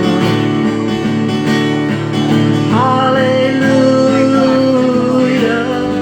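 Gospel worship music with guitar accompaniment between sung lines. About three seconds in, a note slides up and is held for a couple of seconds.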